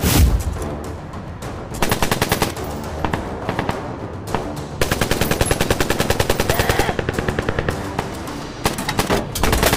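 Automatic rifle fire in rapid bursts: a short burst about two seconds in, then a long burst starting about five seconds in and lasting around four seconds.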